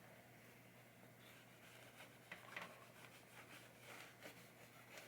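Near silence: room tone with a few faint small clicks and rubs of handling.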